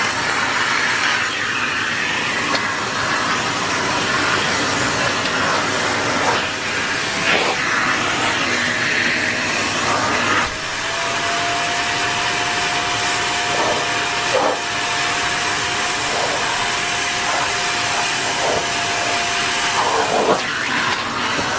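Vacuum cleaner running steadily, with a few short knocks. About halfway through, a steady whine joins the rushing noise and holds.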